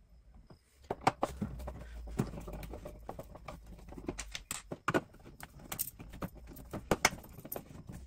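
Irregular clicks, taps and knocks of hands working at the top of a Chanson water ionizer to take it apart, over a low handling rumble in the first few seconds.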